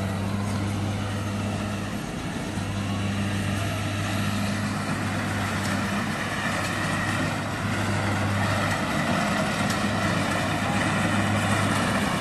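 Rice combine harvester running steadily: a constant engine hum under a dense wash of mechanical noise.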